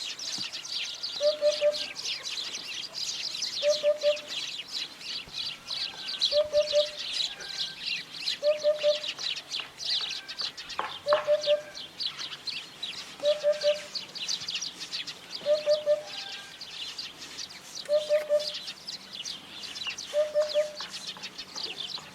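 Hoopoe giving its soft, low 'oop-oop-oop' song: a three-note hoot repeated about ten times, roughly every two and a half seconds. A continuous wash of high-pitched chirping runs behind it.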